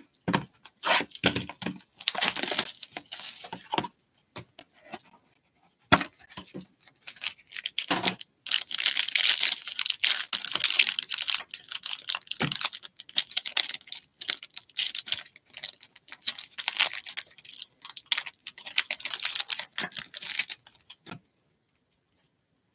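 A foil-wrapped trading card pack crinkling and tearing as gloved hands unwrap it. It follows a few knocks and rustles as the card box is opened, and stops shortly before the end.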